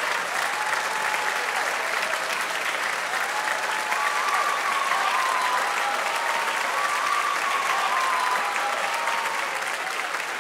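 Audience applauding steadily after an orchestral performance, with cheers and whoops rising over the clapping in the middle; the applause eases slightly near the end.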